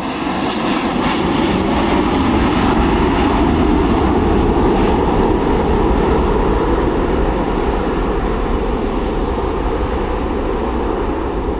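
Jet engines of a four-engine Airbus A340 at takeoff power as the airliner climbs out. The steady, loud engine noise slowly fades as the plane moves away.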